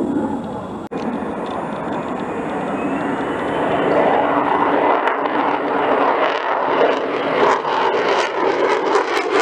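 F-35 Lightning II fighter jets passing overhead: the roar of their single F135 turbofan engines, which grows louder from about four seconds in and turns to a rough crackle as a jet comes close. The sound cuts out briefly about a second in.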